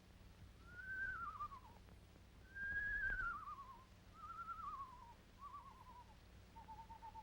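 Screech owl calling: four descending, quavering whinnies, followed near the end by a long trill held on one pitch.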